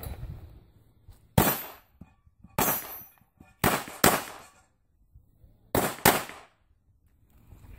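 Six shots from a Taurus PT 380 .380 ACP pistol, each a sharp crack with a short echo: two single shots about a second apart, then two quick pairs.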